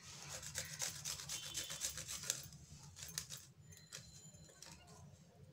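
Fresh ginger grated on a flat stainless-steel hand grater: quick repeated rasping strokes, growing fainter after about three and a half seconds.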